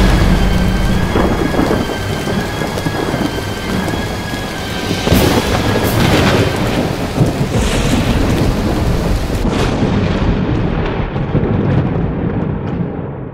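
Thunderstorm: heavy rain with rumbling thunder, cracking loudly at the start and again about five seconds in, fading out near the end.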